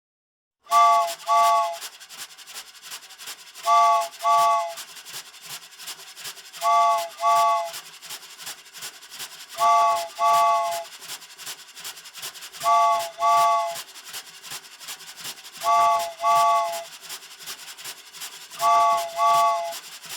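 Cartoon steam-train sound effect: a fast, steady chugging, broken about every three seconds by a double toot of the whistle. The toot is several notes sounded together, each sagging slightly in pitch, and it comes seven times.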